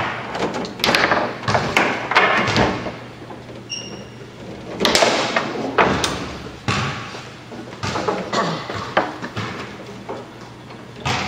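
Foosball table in play: the ball and plastic men knocking and the rods clacking, sharp knocks coming in irregular clusters.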